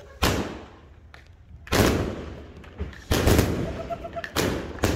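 A 100-shot consumer firework cake firing: four sharp shots roughly a second and a half apart, each trailing off over about a second before the next.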